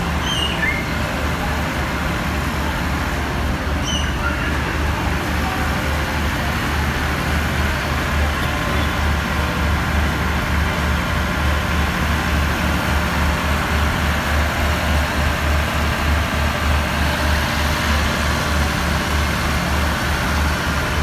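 Diesel engine of a passenger train standing at the platform, idling with a steady low rumble.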